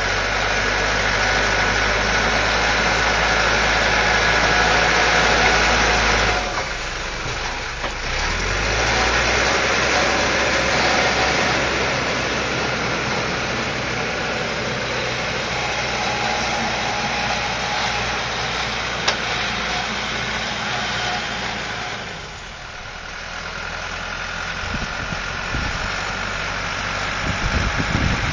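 Caterpillar 416C backhoe's Perkins turbo diesel engine running under work, its note easing off about six seconds in and again about twenty-two seconds in before picking back up.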